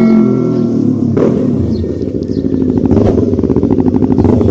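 Yamaha MT-03 parallel-twin engine idling through an SC Project full exhaust, with an even beat of firing pulses from about two seconds in.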